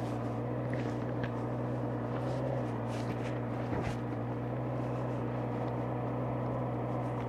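Honda CBR650R's inline-four engine running at a steady, unchanging engine speed.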